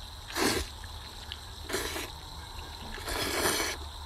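A person slurping a mouthful of glass noodles (粉条) from a chicken-and-mushroom stew, in three noisy slurps about a second and a half apart.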